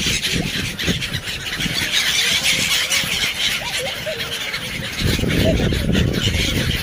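Black-headed gulls calling: a dense, continuous clamour of harsh cries from a flock. A low rumble sits under them at the start and comes back from about five seconds in.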